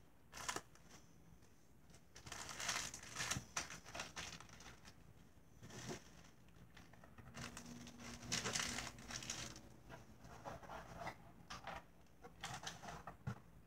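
Plastic packaging crinkling and rustling in irregular bursts as small craft pieces are handled, with a few light taps.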